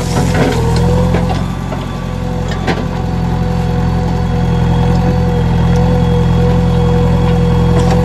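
Diesel engine of a JCB 3DX backhoe loader running steadily while the backhoe digs and dumps soil into a tractor trolley, with a steady whine above the engine hum. A few sharp knocks come from soil and stones dropping into the trolley, the clearest a few seconds in.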